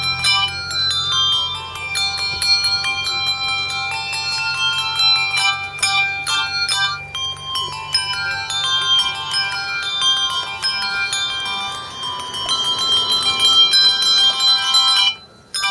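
A handbell duo ringing a tune: a steady stream of struck handbell notes, bright tones overlapping and ringing on, cutting off abruptly near the end.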